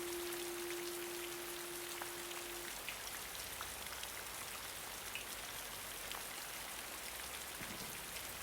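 Steady rain with scattered drops ticking. A last held note of the guitar music rings on and stops about two and a half seconds in, leaving only the rain.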